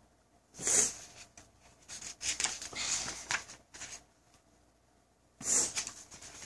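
Paper pages of a picture book rustling as they are handled and turned, in several short bursts.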